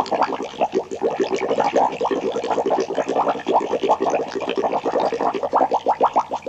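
Sci-fi laboratory sound effect: a dense, continuous stream of short electronic chirps, each sweeping quickly upward in pitch, several a second.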